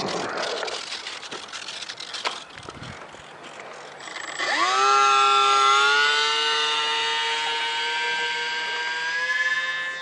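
A ParkZone Icon 5 micro flying boat's electric motor and propeller spool up about four seconds in: a whine that rises quickly, then holds and creeps slowly higher. Before that come a few seconds of scattered clicks and knocks.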